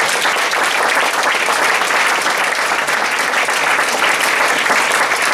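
Audience applause: many people clapping together, dense and steady.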